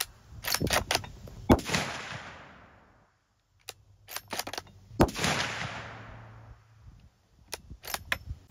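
Two rifle shots from a .450 Bushmaster Ruger American Ranch bolt-action rifle, about three and a half seconds apart. Each report rolls away over more than a second. Quick runs of metallic clicks from the bolt being worked come before and between the shots and again near the end.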